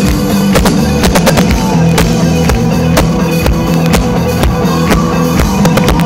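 Live rock band playing loud over a festival PA, recorded from the crowd on a phone: a steady drum-kit beat with electric guitars, bass and keyboards. The sound is harsh and overloaded.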